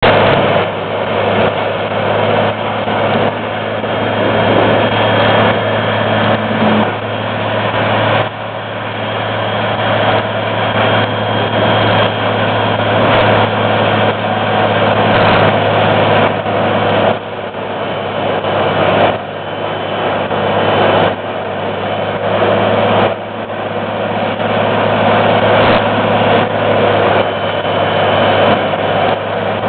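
Vermeer HG 6000 horizontal grinder, a heavy diesel machine of over 635 hp, running under load while it grinds yard waste: a steady engine drone under a dense grinding din. The noise drops away sharply several times and then builds back up.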